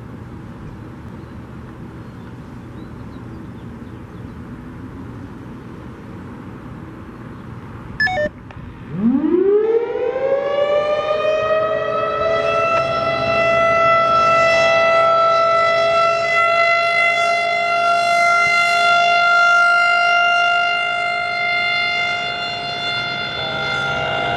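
Federal Signal Thunderbolt 1000 outdoor warning siren starting its Alert signal. After low background noise and a brief sharp sound about eight seconds in, it winds up with its pitch rising over about three seconds, then holds a loud, steady alert tone.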